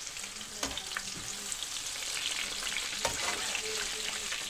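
Peppers sizzling and crackling in hot oil in a nonstick frying pan as pieces are lifted out, with a cooking utensil knocking against the pan twice, about a second in and again about three seconds in.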